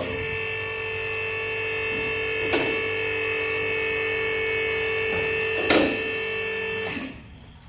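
A small motor, most likely a power tool, running with a steady whine of several pitches. It starts abruptly, cuts off suddenly about seven seconds in, and three short knocks come about a second apart, then three seconds apart.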